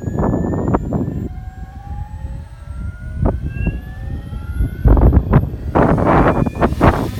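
Goblin 700 electric RC helicopter's motor and rotor whine rising slowly in pitch, over heavy gusts of wind buffeting the microphone.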